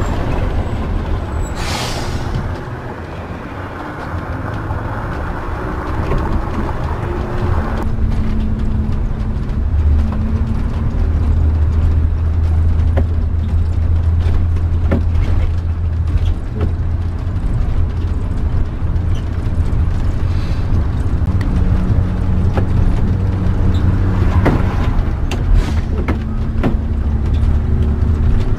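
Engine of an old converted bus running steadily on the move, heard from inside the cab as a loud low hum. A short hiss comes about two seconds in.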